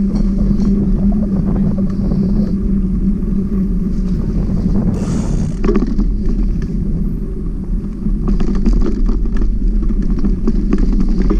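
Bicycle rolling on a rough concrete street: a steady low tyre and road rumble, with wind on the microphone. There is a short hiss about five seconds in, and a spell of rattling clicks from about eight seconds as the surface turns to loose gravel.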